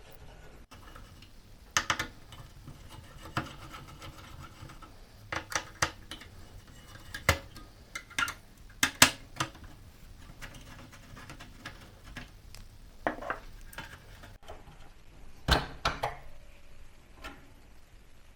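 Irregular clicks, taps and small clinks of a desktop PC's CPU cooler being unscrewed and lifted out by hand, with a few louder knocks.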